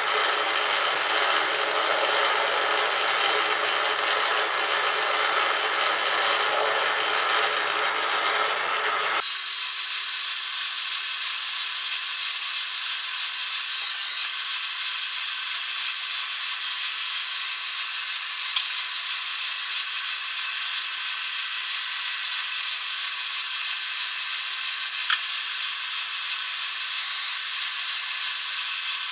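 Metal lathe running with its spindle turning while a tailstock-held centre drill, then a 3 mm drill bit, drills into the spinning part: a steady machine noise. About nine seconds in the deeper part of the sound drops away, leaving a thinner, higher hiss, with a couple of faint clicks later on.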